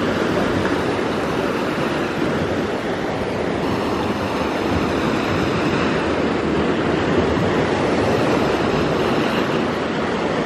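Ocean surf: small waves breaking and washing up the shore in a steady rush of water.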